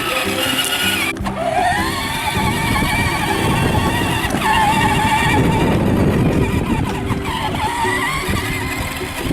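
Electronic simulated ATV engine sound from a 12V Kawasaki ride-on toy quad's speaker, revving up in pitch about three times over a low rumble.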